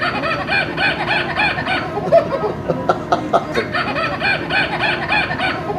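Toy chimpanzee giving a rapid string of chattering monkey calls, short arching hoots at about four or five a second.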